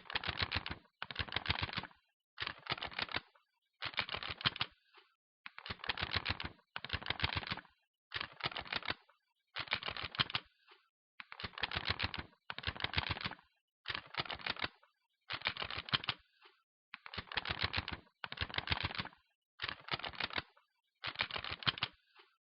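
Rapid clattering clicks in short bursts, about seventeen of them, each lasting under a second with brief pauses between.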